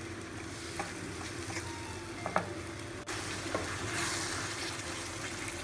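Wooden spatula stirring prawn gravy in a non-stick kadai as it sizzles, with a few scrapes and taps of the spatula against the pan. The sizzle hisses louder about four seconds in, as the thickened gravy is stirred.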